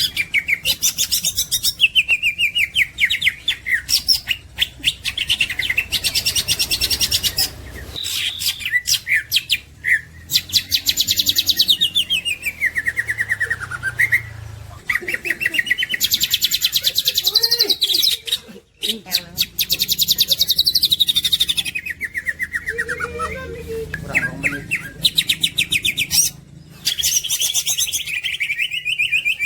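Greater green leafbird (cucak ijo) singing continuously: fast chattering trills and repeated long sweeps falling in pitch, with only brief breaks.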